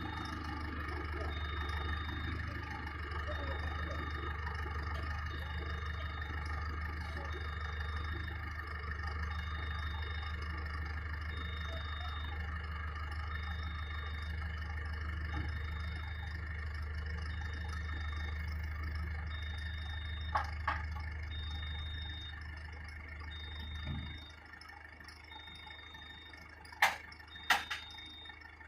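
An engine idles steadily, then cuts out about 24 seconds in, leaving a quieter background. A faint high beep repeats about once a second, and a few sharp clicks or knocks come near the end.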